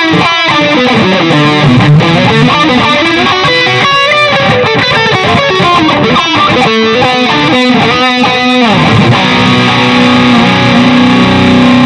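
Electric guitar played through a NUX MG-400 multi-effects unit on its distorted "CT Brit Lead" lead preset. It plays a single-note lead line with bends and vibrato, then holds one long sustained note over the last few seconds.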